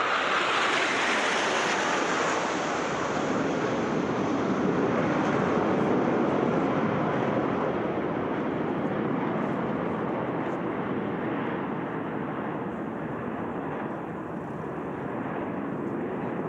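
Aermacchi MB-339 jets of the Frecce Tricolori flying past with a loud jet roar. The roar is brightest and highest for the first two or three seconds, then settles into a lower, broad rumble that slowly eases off.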